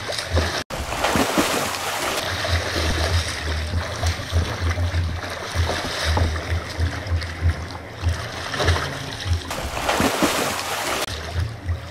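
Heavy splashing and thrashing of a swimmer in a swimming pool, with wind rumbling on the microphone. The splashing surges louder near the end.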